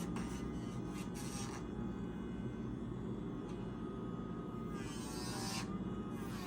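Small electric motor buzzing steadily, typical of an electric pet nail grinder filing a dog's nails. Its faint whine wavers slightly in pitch, and a harsher hiss comes in for the first second or so and again briefly near the end.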